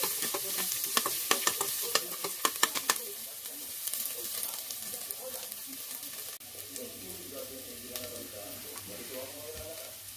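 Chopped lemongrass sautéing in the metal pot of an electric rice cooker. A metal spoon scrapes and clinks against the pot for about the first three seconds, then the stirring stops and a quieter, steady sizzling carries on.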